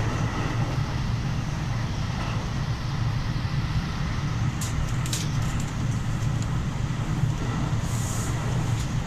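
Steady low rumble of an electric commuter train running, heard inside the passenger car, with a few brief clicks about five seconds in.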